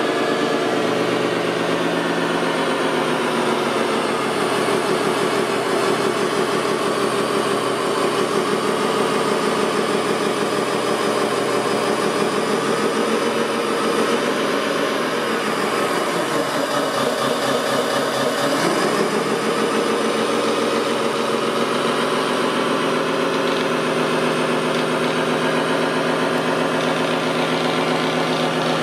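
Radio-controlled scale construction machines running, with a steady motor and engine-like drone. About two-thirds of the way through, the pitch dips and then rises back.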